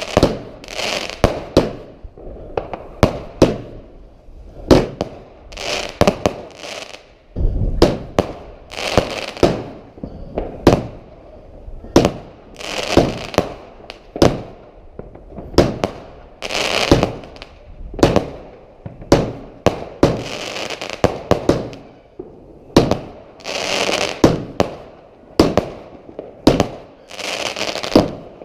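Fireworks going off in quick succession: sharp bangs roughly once a second, each followed by a crackling, fizzing tail, with a deeper boom about seven seconds in.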